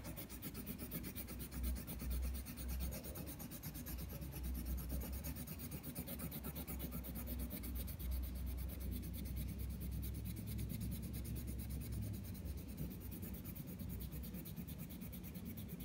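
Coloured pencil shading back and forth on a paper workbook page: a steady scratchy rasp of quick strokes.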